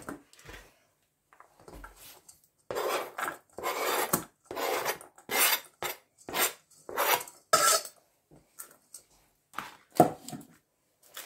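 Diced onion scraped off a plastic cutting board into a stainless steel bowl: a run of about ten quick scrapes, roughly two a second, followed by a few light knocks near the end.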